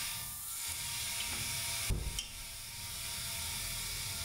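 Steady hiss with a faint hum, and a single dull thump about two seconds in.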